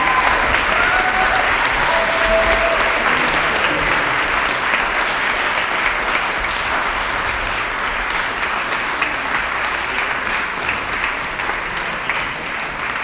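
Audience applauding, thick steady clapping that slowly dies down toward the end.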